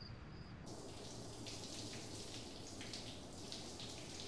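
Steady, fairly faint rain falling on a surface. It comes in suddenly about half a second in, just as soft music with a pulsing high tone cuts off.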